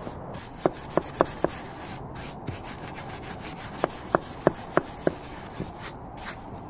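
Wire brush scrubbing dried mud off the steel blade of a mattock, a steady rasping rub, with two runs of sharp knocks: four in quick succession in the first second and a half, then five more around four to five seconds in.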